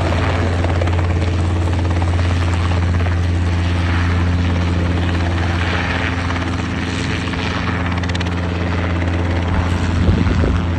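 Robinson R22 Beta II helicopter hovering low and moving slowly. Its two-bladed main rotor beats steadily over the drone of its four-cylinder piston engine. The sound swells briefly near the end.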